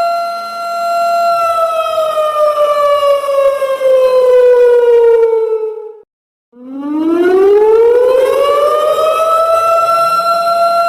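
Siren sound effect in a slow wail. It holds one steady tone, then slides down in pitch over about five seconds. It cuts out for half a second about six seconds in, then rises back up to the same steady tone over about four seconds.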